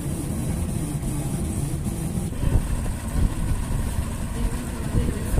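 Twin Yamaha 200 outboard motors running, a steady low engine rumble that turns uneven about halfway through.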